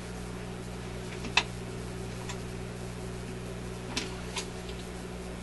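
Record changer mechanism of an Electrohome 652 record player cycling over the player's steady low hum, with a few sharp clicks, the loudest about a second and a half in and two more close together near the end. The change cycle is struggling through a tough spot that it has been slowing at, and this time it gets through.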